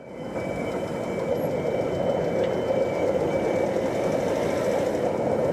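Tyne and Wear Metro train running steadily past over a road level crossing, a continuous rumble of wheels on the rails. A faint steady high tone sits above it.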